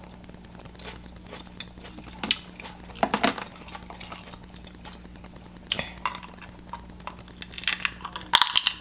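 Close-up eating sounds: scattered clicks and crackles of shellfish being picked apart by hand and food handled on a plate. A louder run of crackling comes near the end as a crab shell is worked apart at the mouth.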